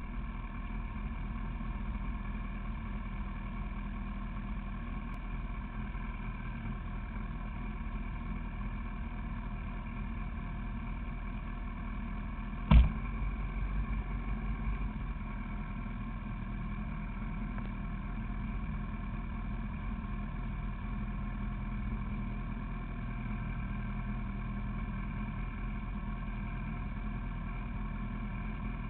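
Honda CBR1000RR's inline-four engine idling steadily, with a single sharp clunk about halfway through.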